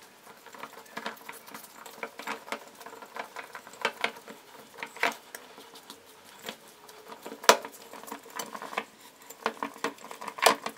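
Pizza dough being kneaded by hand in a stainless steel bowl: irregular soft patting and squishing of the dough, with sharp knocks against the steel bowl, the loudest about seven and a half seconds in.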